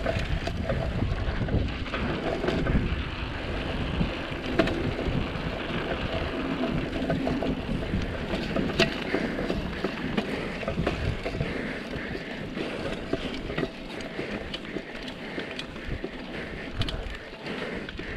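Mountain bike being ridden over rough ground: tyre noise with many scattered rattling clicks, and wind rumbling on the microphone, easing in the second half.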